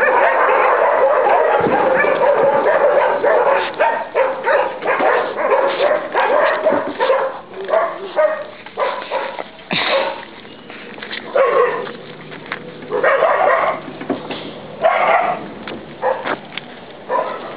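Many dogs barking together: a dense, overlapping chorus at first, thinning after about seven seconds to separate barks with short gaps between them.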